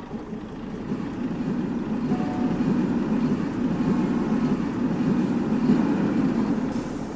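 A low, dense rumble that swells over the first couple of seconds, holds steady, then eases off near the end, like a train or heavy vehicle going by.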